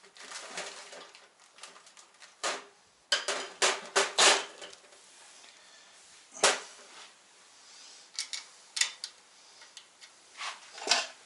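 Steel bolts and small hand tools clinking against each other and a metal parts tray as they are sorted through by hand: scattered clicks and clatters, with a quick run of them about three to four seconds in and a single sharp clack about six and a half seconds in.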